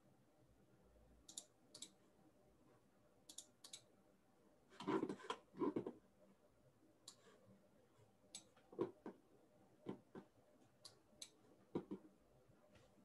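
Faint, scattered clicks of a computer mouse and keyboard, some in pairs, with a louder quick flurry of clatter about five seconds in.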